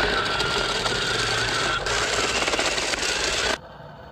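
Toy RC water-bomb tank driving on rough concrete: its small electric drive motors whine steadily while its mecanum wheels rattle over the surface. The sound cuts off abruptly about three and a half seconds in.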